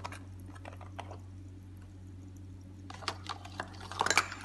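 Light clicks and knocks of kitchen items handled over a stainless steel mixing bowl, scattered at first, then a quick cluster near the end, over a steady low hum.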